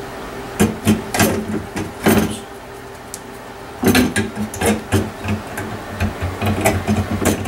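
Irregular clicks and knocks of metal parts being handled as a bathroom fan motor is fitted to its sheet-metal mounting plate, in two bursts, over a steady low hum.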